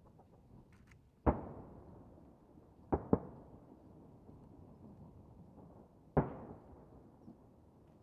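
Distant aerial firework shells bursting: four booms, one about a second in, two close together around three seconds, and one past six seconds. Each trails off in a rumbling echo.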